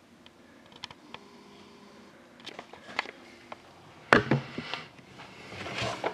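A shrink-wrapped hockey card box being picked up and handled: a few faint clicks early on, then a sharp knock about four seconds in, followed by rustling of the plastic wrap.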